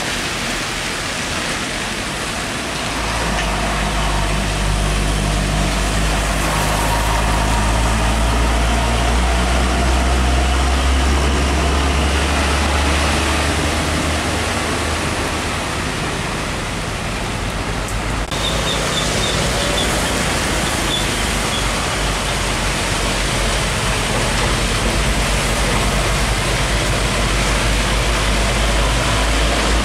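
Heavy Hino diesel trucks passing on a rain-soaked road: a low engine drone over a steady hiss of rain and tyres on wet tarmac. About 18 seconds in the sound changes abruptly to another truck's engine.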